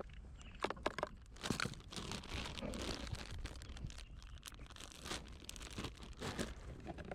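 Irregular rustling and crunching with scattered sharp clicks.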